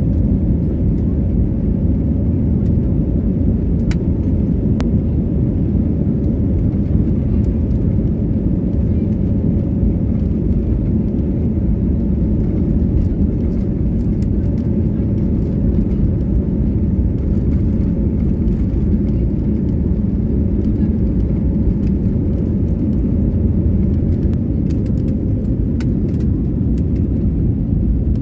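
Jet airliner's engines at take-off thrust heard from inside the cabin: a loud, steady low rumble through the take-off roll and lift-off, with a few faint clicks.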